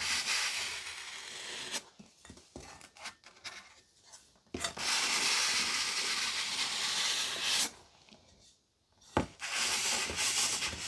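Scraping and rubbing noise in three long stretches, broken by quieter gaps, with a sharp click about four and a half seconds in and another near nine seconds.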